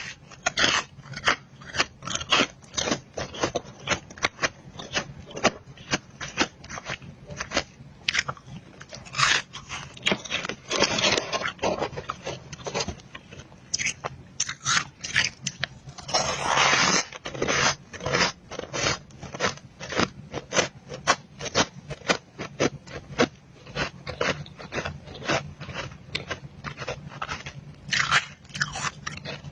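Close-miked crunching and chewing of powdery freezer-frost ice: a rapid run of crisp crunches, several a second, with a couple of longer, grinding crunches.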